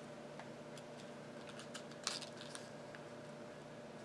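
Faint rustling and creasing of a sheet of lined notebook paper being folded by hand, with one slightly louder crinkle about halfway through, over a faint steady hum.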